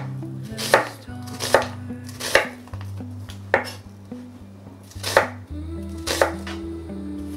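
Kitchen knife chopping onion on a cutting board: six separate crisp strokes, unevenly spaced about a second apart.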